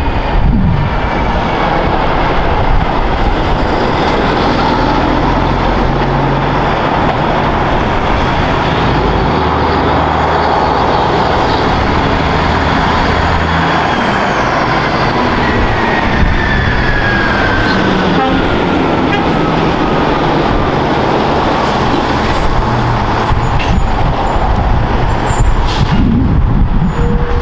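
Heavy diesel trucks, Kenworths among them, passing close by one after another with cars in between, their engines running loud and steady. A whine falls slowly in pitch about halfway through.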